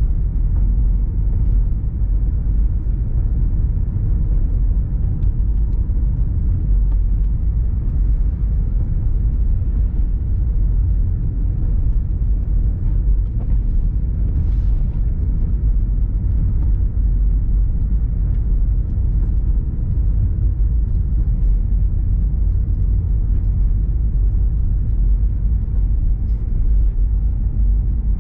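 A car driving steadily, heard from inside the cabin: a constant low rumble of engine and road noise.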